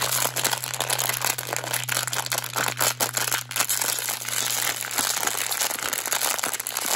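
Plastic foil bag crinkling continuously as it is crumpled and pulled open by hand, a dense crackle of many small clicks.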